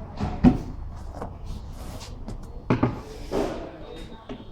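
Cabinet panels being handled and fitted: a series of separate wooden knocks and bumps, the loudest about half a second in, with more near one second and near three seconds.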